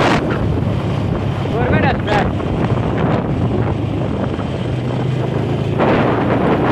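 Wind buffeting the microphone of a phone carried on a moving motorcycle, over the steady hum of the motorcycle's engine. The wind noise grows louder near the end.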